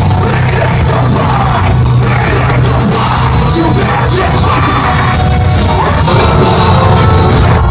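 Live heavy metal band playing loud and without a break through a club PA, with harsh yelled vocals over heavy guitars and drums, heard from within the crowd.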